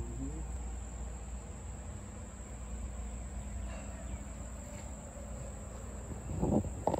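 Steady high-pitched chorus of insects singing, with a low rumble underneath and two short low sounds near the end.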